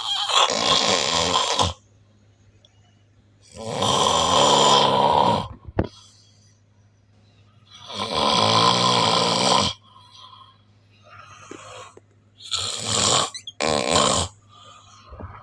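A person snoring loudly, with a lion-like growling snore on each breath about every four seconds: three long snores, then two shorter ones near the end.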